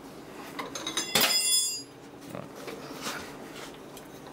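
Metallic ticks and clicks from a Yanmar YSE12G diesel's fuel injection pump being worked by hand, with one short, loud hiss about a second in as fuel is forced out of the pump's delivery outlet at high pressure.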